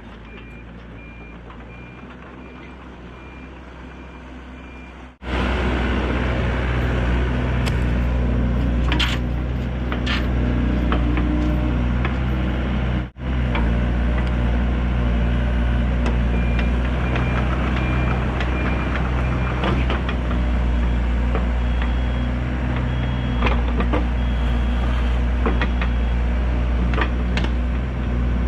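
Excavator's diesel engine running with its backup alarm beeping in a regular on-off pattern, and a few sharp metal clanks as the mulching head is taken off and the tilt bucket is put on.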